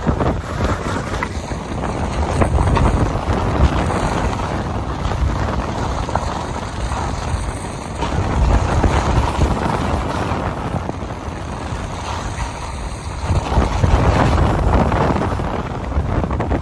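Wind rumbling on the microphone of a camera carried by a skier on a downhill run, together with the hiss of skis sliding and carving on groomed snow. The noise swells and eases every few seconds as the skier turns and picks up speed.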